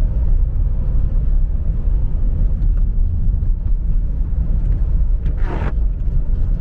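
Steady low rumble of a car's engine and tyres heard from inside the cabin while driving on a road with wet and dry patches. A brief, louder sound cuts in about five and a half seconds in.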